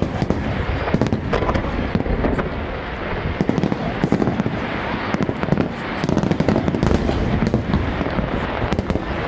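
Aerial fireworks display going off: a dense, rapid series of bangs and crackles, many shells bursting in quick succession.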